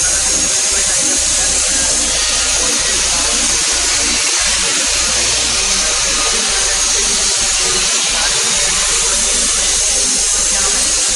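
A small electric motor or power tool running steadily: a continuous, even whirring noise with a hiss on top.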